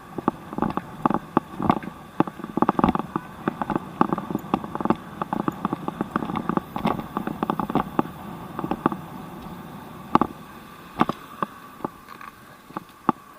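Bicycle rattling and clicking over rough pavement: rapid, irregular sharp clicks and knocks, several a second, thinning to a few scattered clicks after about ten seconds.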